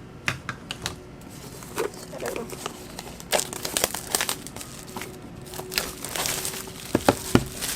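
Crinkling and rustling of album packaging being handled, with scattered light clicks and taps and a few sharper taps near the end.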